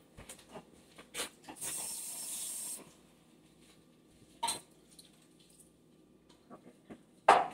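Kitchen handling noise: light clicks and knocks of spice containers and utensils being moved and set down, ending in one sharp knock near the end. A brief steady hiss lasts about a second, about a second and a half in.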